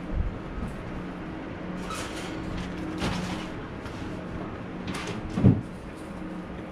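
Household handling noises over a steady low hum: a couple of brief scrapes or rustles, then a single low thump about five and a half seconds in.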